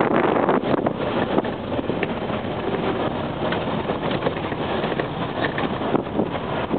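Inside a moving four-wheel-drive vehicle on a rough narrow road: a steady rumble of engine and tyres with small knocks and rattles from the body, busiest in the first second or so.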